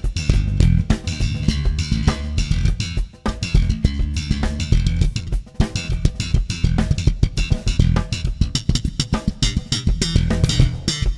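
Live contemporary jazz band: an electric bass plays a busy line of rapid, punchy low notes over a drum kit.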